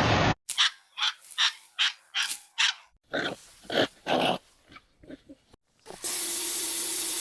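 A dog giving a quick run of short, sharp barks, later spacing out and growing fainter. About six seconds in, a steady hiss starts.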